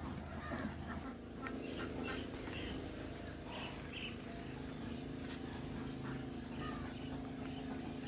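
Birds calling now and then in short chirps over a steady low hum.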